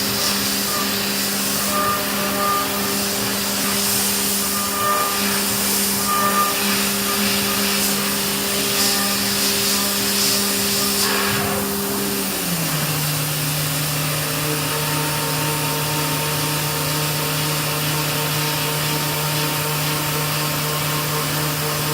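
Haas VF-2SS CNC vertical mill milling aluminium: a steady machine hum from the running spindle under a hiss of cutting and spray. About twelve seconds in, the hum steps down to a lower pitch and holds there, a change in spindle speed.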